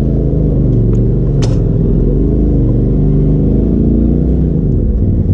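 Polaris RZR side-by-side's engine running at low throttle, heard from inside the cab, its pitch drifting gently up and down with the throttle. A single sharp click about a second and a half in.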